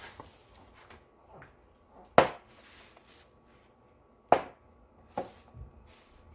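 Flowerpots knocking against a table while plants are repotted: two sharp knocks about two seconds apart and a softer one near the end, with a brief rustle after the first.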